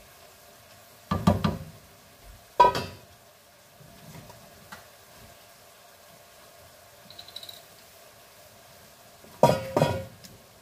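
Wooden spatula knocking and clattering against a frying pan while stirring bean sprouts: a cluster of knocks about a second in, one sharp knock a second or so later, and another cluster near the end.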